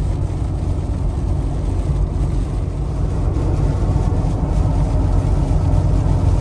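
Steady low rumble inside the cab of a Jeep Wrangler JL cruising at highway speed on a wet road, from its engine and large off-road tires.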